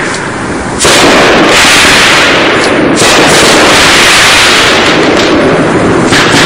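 500-gram aerial repeater fireworks cake firing its shots: very loud explosive breaks overhead, with sharp new onsets about a second in and again at about three seconds, run together into a dense sustained crackle.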